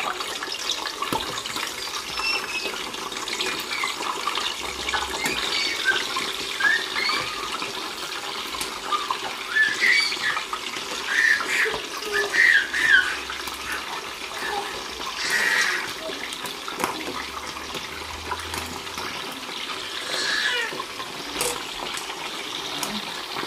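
Meat boiling in pans of stock on the stove, a steady bubbling hiss, with a slotted metal spoon now and then clinking and scraping against the pan as pieces are lifted out.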